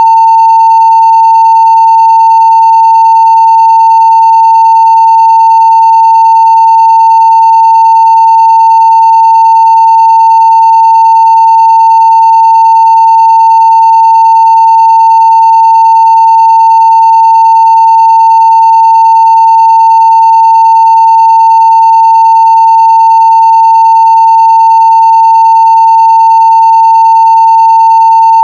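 Steady 900 Hz sine-wave test tone at full scale (0 dB), loud and unbroken.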